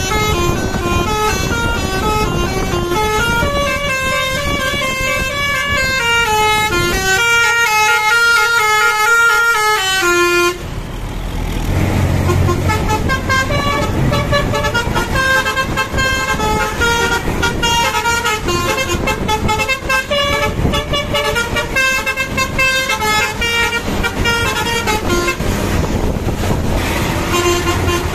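Bus 'telolet' Basuri multi-tone horn playing a melody, its notes stepping up and down one after another. About ten seconds in it breaks off, and another run of the horn tune follows over a bus engine running.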